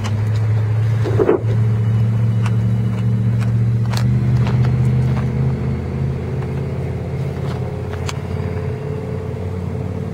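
A motor vehicle engine running steadily close by, a low hum that eases off slowly in the second half. A few sharp clicks are scattered over it.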